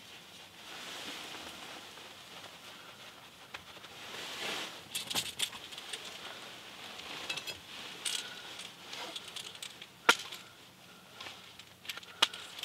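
Quiet rustling with scattered small clicks and ticks over a faint steady hiss, and one sharper click about ten seconds in.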